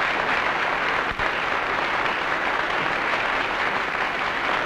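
A theatre audience applauding steadily, with a brief drop about a second in.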